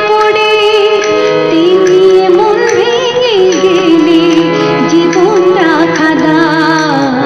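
A woman singing a Bengali song in long, wavering ornamented notes, accompanied by a harmonium holding steady sustained chords.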